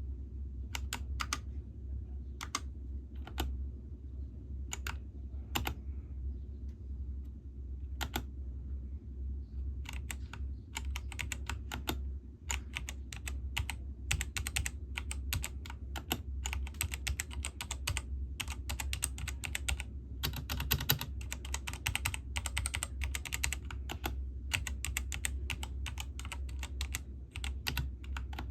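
Ant Esports MK1300 V2 60 percent mechanical keyboard being typed on: single keystrokes spaced a second or so apart at first, then from about ten seconds in a fast, continuous run of key clicks. A steady low hum sits beneath.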